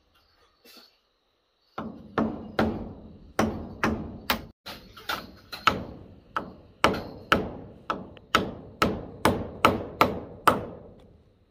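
A tool striking wood in a steady run of sharp blows, about two to three a second, each with a short ring. The blows start about two seconds in and stop shortly before the end.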